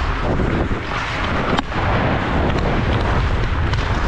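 Low rumble of wind on a helmet-mounted action camera's microphone as an ice hockey player skates, with skate blades scraping the ice and one sharp click about a second and a half in.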